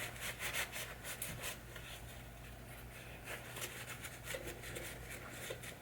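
A 3M abrasive scrub pad rubbing hardened adhesive residue off a pinball drop target part: a faint run of quick, irregular scrubbing strokes.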